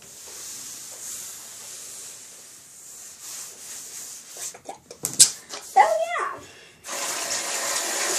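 Water running steadily from a bathroom tap into the sink, starting suddenly near the end. Before it, a soft hiss of powdery hands rubbing over the countertop, a couple of sharp knocks and a short squeak.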